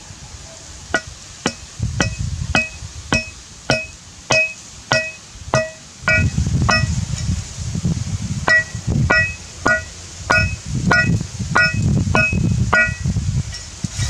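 Heavy cleaver striking wooden stakes to drive them into the ground, about two blows a second, each with a short metallic ring. A low wind rumble on the microphone sets in about halfway through.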